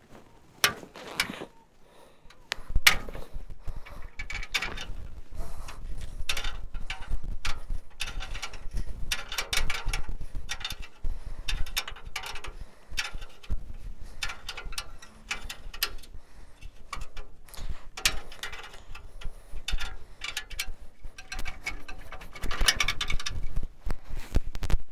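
Hand tools working on metal: irregular clicking and clanking, with a low rumble starting about three seconds in.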